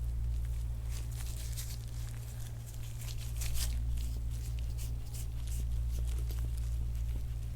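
A run of short rubbing, scraping strokes from hands-on soft-tissue work on skin, starting about a second in and strongest a little past the middle, over a steady low hum.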